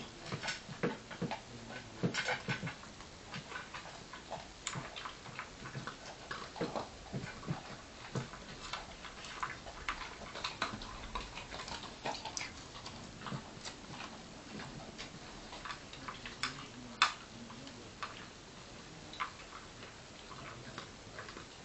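Irregular light clicks and taps from small dogs, several a second, with a few louder ticks scattered through.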